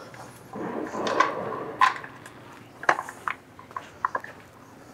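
Handling noise and scattered light clicks and knocks of small metal parts and hand tools, as locator pins are fitted into the chain box of a Porsche 993 engine. There is a sharper knock about two seconds in and another about three seconds in.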